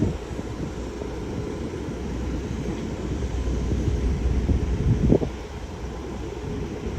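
Low rumble of a jet airliner's engines, with wind buffeting the microphone and a brief louder gust about five seconds in.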